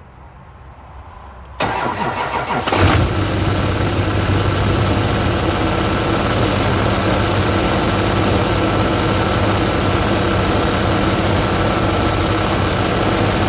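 Duramax V8 turbodiesel cranked by the starter for about a second, catching and settling into a steady idle. It runs with a steady hum that the owner thinks comes from the accessory belt's idler pulleys.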